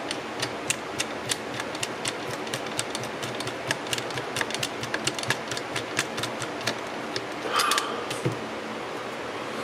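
Quick, uneven small clicks, about four a second, from a screwdriver turning a screw into the end cover of a Singer 306K sewing-machine motor. Near the end a brief metallic clatter and then a single low knock.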